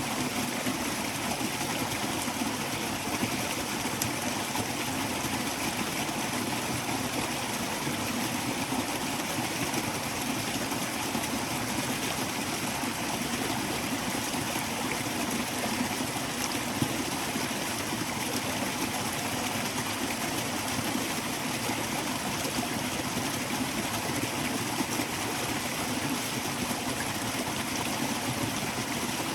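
A stream flowing steadily, a constant even rush of water, with one brief tick a little over halfway through.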